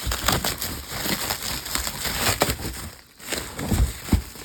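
Items being lifted out of a cardboard box: rustling and crinkling handling noise with a few dull knocks.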